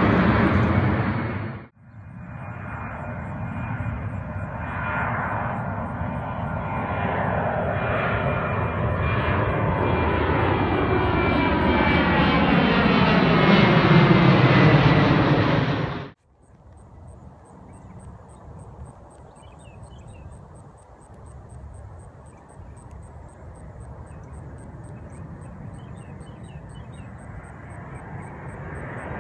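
Twin-engine jet airliners flying low overhead. In the first pass the jet noise swells steadily louder, with a steady high whine and sweeping tones as the plane goes over, then stops abruptly about 16 seconds in. A second jet follows much more faintly and slowly grows louder.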